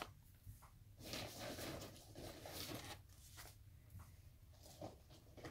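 Faint rustling of a shopping bag being rummaged through as yarn is pulled out, coming in several short spells, with a sharp click at the very start.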